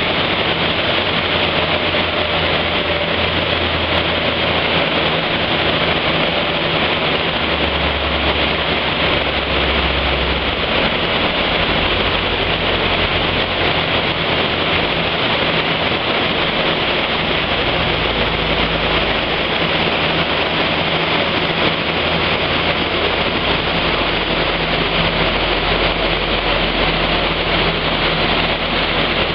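Hatchback engine fitted with a cone air filter, running on a roller dyno, with the rollers and driven tyres making a steady, loud whir. The engine's low hum steps up and down a few times rather than sweeping through the revs.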